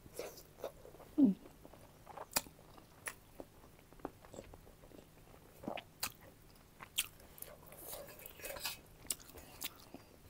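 Close-miked chewing and biting of food: scattered wet clicks and smacks of mouth and teeth, with one brief, louder sound about a second in.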